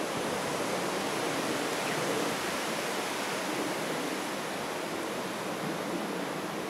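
Steady outdoor background noise, an even rushing hiss with no distinct calls or knocks.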